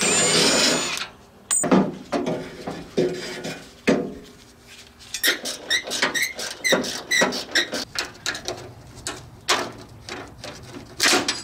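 A Milwaukee cordless impact driver runs for about a second, working a fastener loose on a car door. After that the door's metal window track is worked free inside the steel door shell, with squeaks, scrapes and sharp clanks of metal on metal, and a run of repeated squeaks midway.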